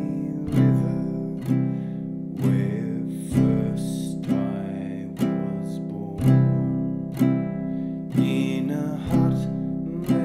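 Ukulele strummed in a steady rhythm, about one strum a second, each chord ringing on until the next.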